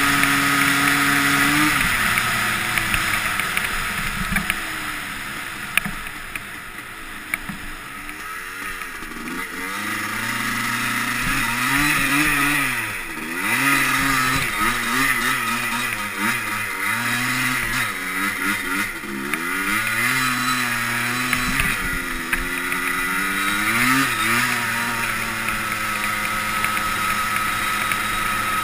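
Yamaha Blaster's two-stroke single-cylinder engine under way. It holds a steady note at first, falls off and runs quieter for a few seconds, then revs up and down repeatedly, settling back to a steady note near the end.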